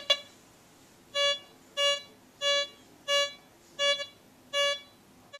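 Bliss Tool LTC64 pulse-induction metal detector giving six short, even beeps, about one every two-thirds of a second: its signal for the buckle set 14 inches off the ground.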